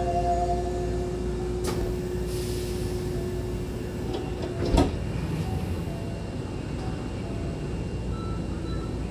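Hankyu train's double sliding doors closing: a click about two seconds in, a hiss as the leaves slide, then a loud thump as they meet about five seconds in, over the steady hum of the stopped train.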